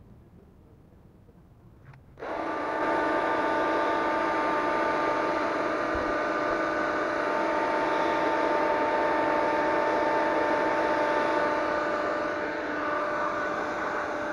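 Handheld electric hair dryer switched on with a click about two seconds in, then running steadily with a whirring fan-motor hum and a rush of blown air.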